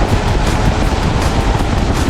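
Car running at speed, its engine and tyre noise buried under heavy wind rumble on the microphone, with music with a steady beat over it.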